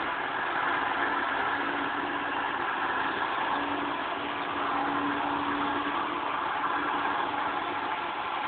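Off-road 4x4 recovery: a steady, unbroken machine drone with a constant hum, from the vehicle's engine and pull on a recovery strap anchored round a tree.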